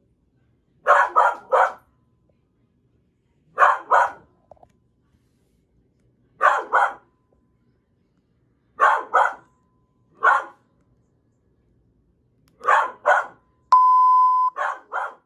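A dog barking in short runs of two or three barks, every two to three seconds. Near the end a steady electronic beep sounds for under a second between barks.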